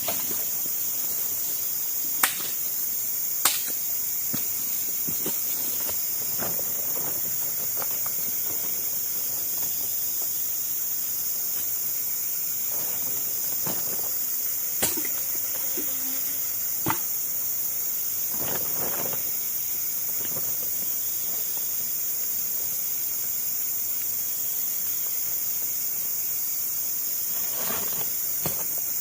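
Steady high-pitched drone of a tropical forest insect chorus, with a few sharp knocks and brief rustles scattered through it.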